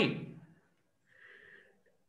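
A man's spoken sentence trailing off in the first half second, then near silence with one faint, short breathy sound a little past a second in.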